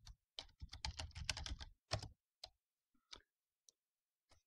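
Typing on a computer keyboard: a quick run of keystrokes over the first two seconds, then a few scattered single key presses.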